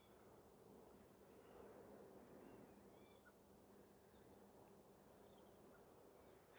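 Goldcrests calling: a faint, steady run of very thin, high-pitched notes repeated many times, with a short lower bird chirp about three seconds in.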